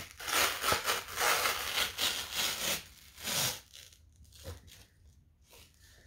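A cardboard mailer package being torn open by hand. A long rip runs for about three seconds, a second short rip comes about three and a half seconds in, then there is quieter rustling of card.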